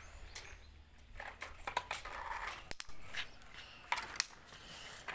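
Plastic clicks and scraping as a toy excavator is handled on concrete, with a few sharp clicks standing out in the second half.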